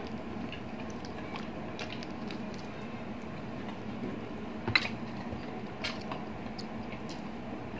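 Close-miked chewing of balut, with soft crackles of eggshell being peeled and two small clicks about five and six seconds in.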